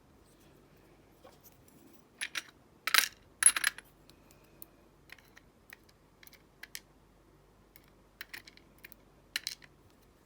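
Small metal lock parts and a tool clicking and clinking against a pinning tray as a pin-tumbler padlock cylinder is unpinned: a handful of sharp light clinks, the loudest cluster about three seconds in, and a few more near the end.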